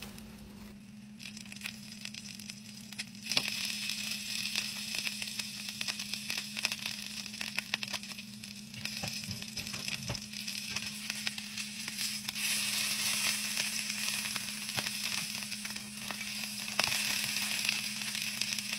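Butter sizzling and crackling in a frying pan as Reuben sandwiches cook, with many small pops. It grows louder about three seconds in and swells again later on.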